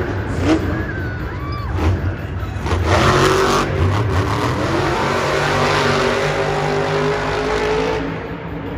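Grave Digger monster truck's supercharged big-block V8 revving hard. It rises to a loud, sustained high-rev run about three seconds in and eases off just before the end, with a few knocks and brief squeals in the first couple of seconds.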